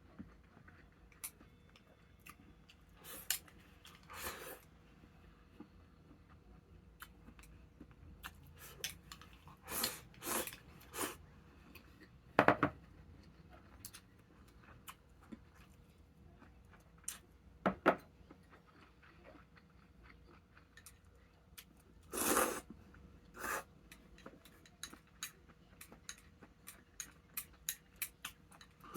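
A person eating a meal: scattered light clicks and knocks of tableware against dishes, with bouts of chewing.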